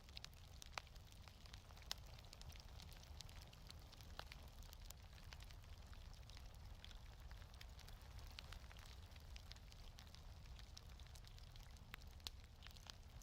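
Wood fire in a fireplace crackling faintly: scattered small sharp pops over a soft, steady low rumble.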